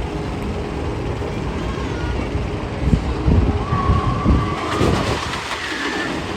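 A sound effect played in a roller-coaster tunnel: a steady low rumble with heavier thumps about halfway through, a wavering tone joining near the middle, and a hissing rush near the end.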